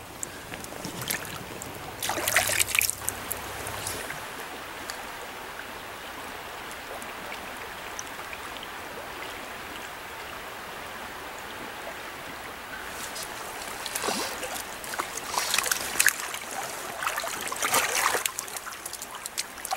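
Trout stream flowing steadily, with short bursts of splashing about two seconds in and several more in the last few seconds.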